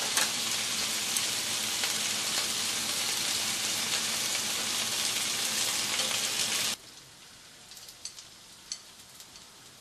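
Pot sticker dumplings sizzling in oil in a frying pan, a steady hiss that cuts off suddenly about seven seconds in. After that come a few light clicks of chopsticks lifting dumplings onto a plate.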